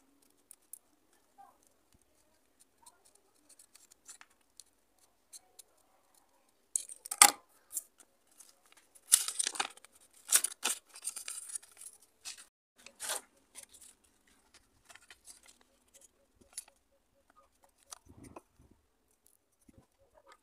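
Scissors snipping through paper, faint at first. This is followed by louder paper rustling and sharp crackles over several seconds as the cut sheet is handled.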